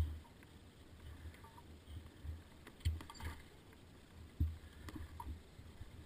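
Dull thumps and knocks as a dirt bike is wrestled through boulders, picked up by a helmet camera, with a low rumble between them. The loudest knock comes right at the start and another about four and a half seconds in; no engine is heard.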